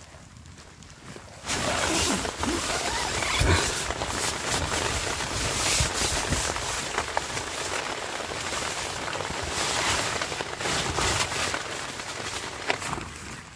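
Rain pattering on nylon tent fabric, heard from inside the tent, mixed with the crinkling and rustling of a wet plastic rain poncho being pulled off. The noise comes in loudly about a second and a half in and stays dense with many sharp crackles.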